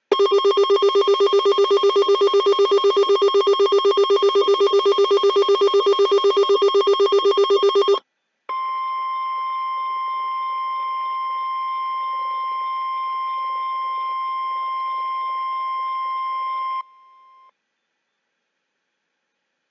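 NOAA Weather Radio alert tones. A rapidly pulsing electronic alert tone sounds for about eight seconds, then after a short gap the steady single-pitch 1050 Hz weather radio warning alarm tone plays for about eight seconds before cutting off, with a brief faint tail.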